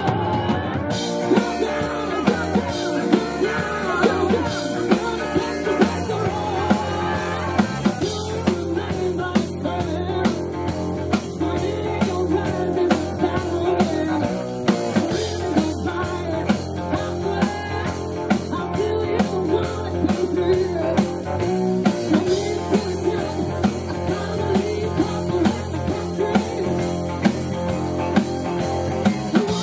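Live rock band playing a song, with a steady drum beat, guitar, bass and a singer.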